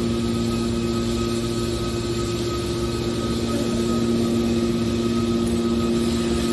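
Hydraulic scrap metal baler's power unit running with a steady hum that holds one pitch throughout.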